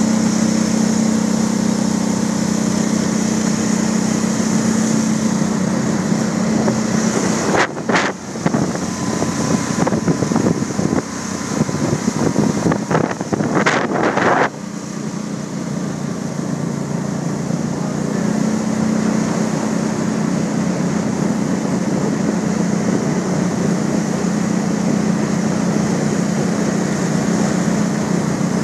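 Small mud motor on a boat running steadily with a low droning note as it pushes through weedy water. From about eight to fourteen seconds in, the steady note is broken up by choppy, uneven noise, then settles back into a steady run.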